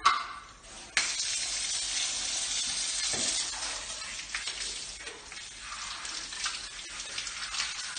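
Hand-held shower head spraying water onto a dog's coat and a tiled floor, switching on suddenly about a second in as a steady hiss that eases and wavers in the second half. A short sharp sound comes from the mixer tap just before the water starts.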